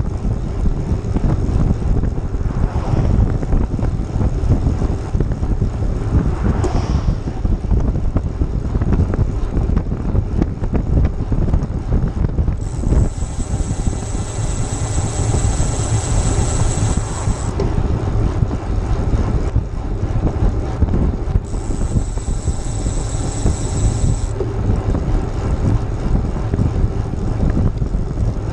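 Wind noise buffeting an action camera's microphone as a road bike rolls along at speed, with a steady low rumble. Twice, about halfway through, a high thin buzz joins in for a few seconds and then stops.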